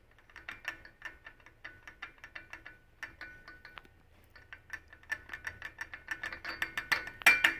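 Motorized bicycle engine's clutch drum gear worked back and forth by hand, its teeth clicking and rattling with a metallic ring, in quick runs with a short pause in the middle and loudest near the end. The ring comes from play in a loose clutch bearing.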